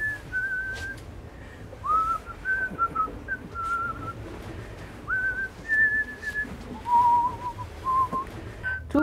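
A person whistling a tune: a string of clear held notes with a slight waver, moving up and down and settling lower near the end.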